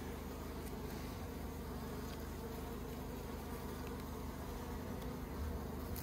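A mass of honeybees buzzing in a steady hum, from a wild rock-cavity colony disturbed while its comb is being lifted out by hand.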